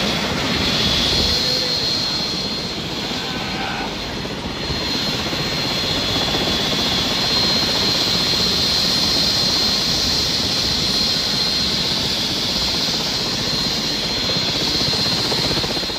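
Helicopter running on the ground with its main rotor turning: a steady rush of engine and rotor noise under a constant high-pitched whine.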